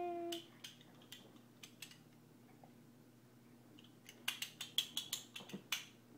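A baby's plastic rattle toy being shaken and swung: scattered sharp clicks, then a quick run of about a dozen rattling clicks about four seconds in. A baby's long held vocal sound, falling slightly in pitch, ends just after the start.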